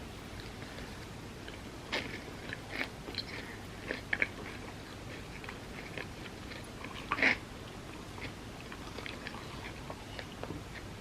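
Close-miked eating: a person chewing, with scattered short crunches and mouth clicks, the loudest about seven seconds in.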